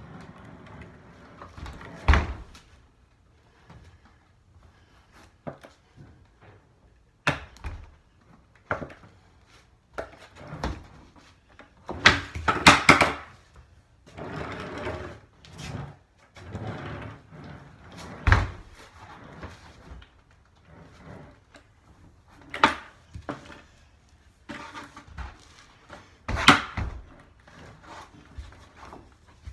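Skateboard on a concrete floor: wheels rolling, with repeated sharp clacks and thuds of the wooden deck and wheels hitting the floor as tricks are tried. The hits are scattered irregularly, several of them loud, in a small echoing room.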